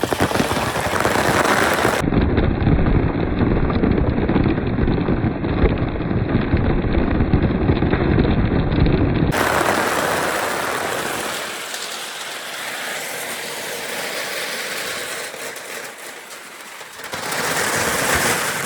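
A large batch of marbles rolling and clattering down a wooden gutter slide with water: a dense, continuous rattle that thins to a rushing hiss about halfway through and swells again near the end.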